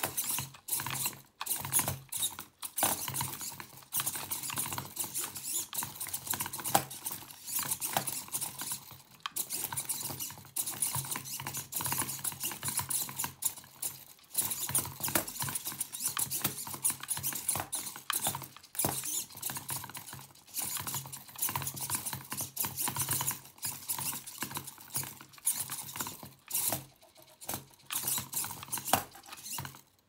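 Hobby servo motors of a 3D-printed robot arm whirring and chattering in quick starts and stops as the arm is driven about by joystick, over a low steady buzz.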